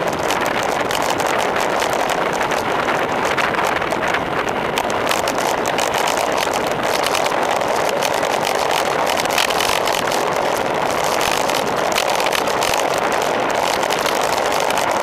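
Steady rush of wind and road noise over a camera mounted on a road bike's handlebar during a fast descent.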